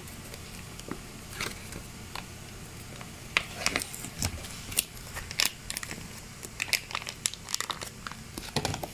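Crinkling and rustling of plastic and foil food sachets being handled, with scattered sharp crackles that come more often from about three seconds in.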